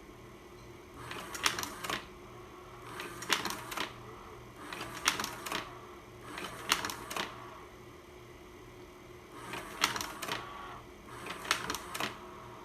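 1980s Vivitar slide projector's slide-change mechanism clacking six times as the slides are advanced, each change a quick run of several mechanical clicks, with a longer pause near the middle. A steady hum runs beneath.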